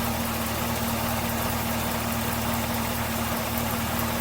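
2021 Chevrolet Camaro ZL1 1LE's supercharged 6.2-litre LT4 V8 idling steadily.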